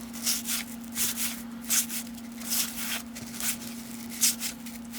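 Baseball cards being slid off a stack one at a time by hand, a soft papery swish roughly every second. A steady low hum runs underneath.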